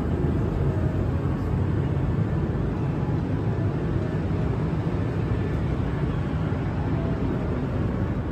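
Steady rumble of an Airbus A220 heard from inside the passenger cabin: engine and airflow noise, heaviest in the low end and with no sudden events.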